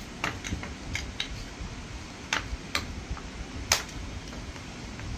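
Small plastic toy pieces being handled and set down, giving a series of irregular sharp clicks and clacks, the loudest about three and a half seconds in.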